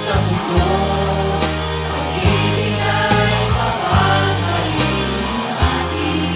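A group of voices singing a song over an instrumental backing with a steady bass line.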